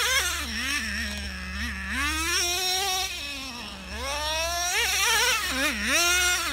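Traxxas Revo nitro RC truck's two-stroke glow-fuel engine revving hard as it is driven, its high buzzing pitch sweeping up and down with the throttle and holding high for a second or so twice.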